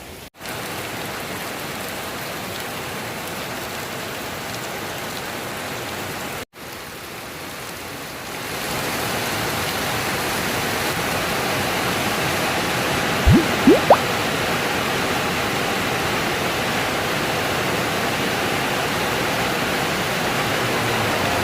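Heavy rain falling steadily, a continuous hiss that grows louder about eight seconds in. About thirteen seconds in, two short, sharp rising whistle-like sounds cut through it.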